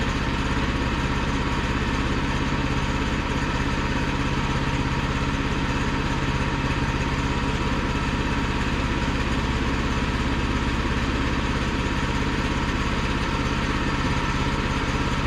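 Gas engine of a Woodland Mills portable bandsaw mill running at a steady speed.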